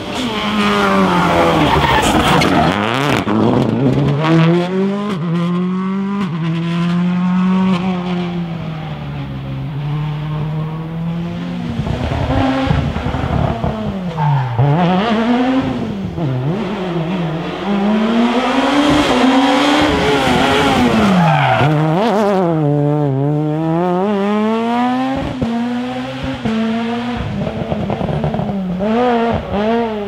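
Rally cars at stage speed passing one after another, first a Subaru Impreza rally car and then a Peugeot 207 S2000 with its naturally aspirated four-cylinder engine. The engine note rises and drops sharply, again and again, with gear changes and lifts for the bends.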